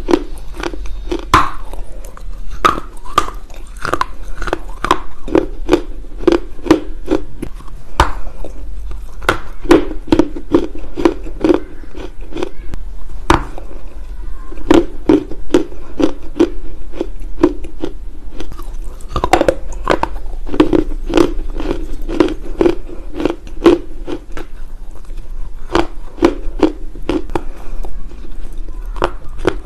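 Dry lumps of loess clay being bitten and chewed close to the microphone: sharp crackling crunches over a steady chewing rhythm of about two to three chews a second.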